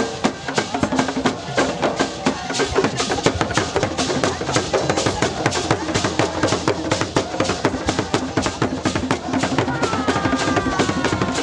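Traditional drum ensemble: several hand-struck drums playing a fast, dense rhythm together with shaken gourd rattles. Voices sing over the drumming, most clearly near the end.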